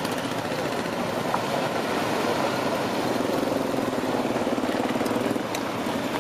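Engines of several quad bikes and motorcycles running at low speed as they roll past one after another, one engine note standing out for a few seconds in the middle.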